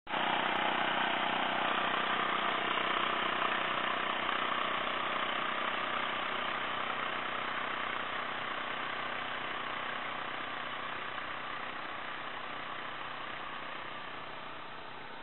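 Engine of a Yanmar walk-behind power tiller running steadily as it pulls a bed-former and plastic mulch layer over the soil. The sound starts suddenly and fades slowly toward the end.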